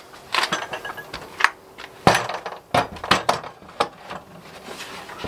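Wooden garden gate being lifted and shuffled into its opening: a series of irregular knocks and clunks of timber against timber, with a few lighter clinks.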